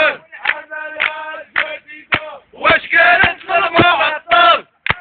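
A crowd of men chanting protest slogans in unison, with sharp hits marking the rhythm.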